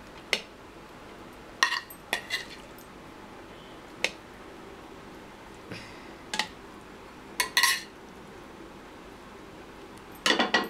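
A metal spoon clinking and scraping against a frying pan and a plate as cooked food is dished out. There are about eight separate sharp clinks, some in quick pairs, with quiet gaps between them.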